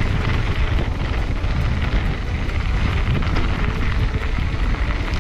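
Wind buffeting a helmet-mounted action camera while riding a mountain bike downhill, with the bike rattling steadily over rough ground.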